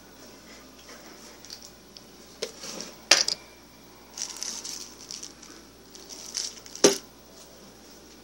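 A few sharp knocks or clinks of small hard objects, the loudest about three seconds in and again near seven seconds, with softer clattering and rustling between.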